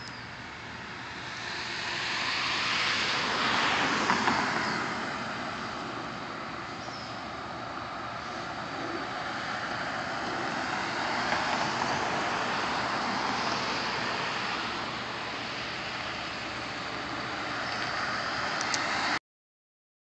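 Road traffic passing, the noise swelling and fading twice, with a few faint high bird chirps. The sound cuts off suddenly near the end.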